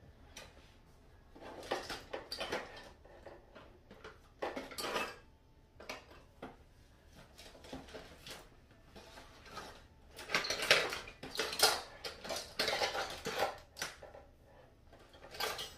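Small hard makeup containers, such as lipstick tubes and compacts, clattering and rattling as they are rummaged through, in irregular bursts, busiest and loudest from about ten to fourteen seconds in.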